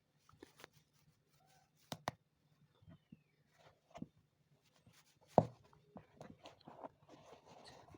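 Hand shoe-repair work: scattered small clicks and knocks of tools and leather being handled, with a sharper knock about five seconds in and light scratchy rustling near the end.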